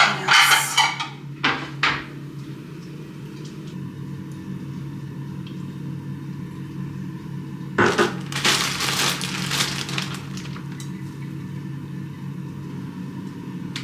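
Kitchen handling sounds over a steady low hum: a clatter of containers in the first second, then a longer rustle and crinkle of a plastic zip-top bag being handled from about eight seconds in.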